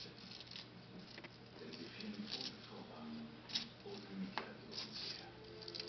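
Six-week-old Bengal kittens moving about and playing: light pattering and scuffling of small paws with scattered soft clicks.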